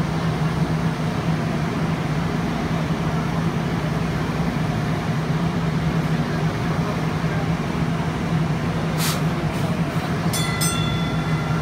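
Electric DART light rail car rolling slowly past at close range, a steady low hum over rumbling wheel noise. Near the end a high ringing sound with several tones sets in.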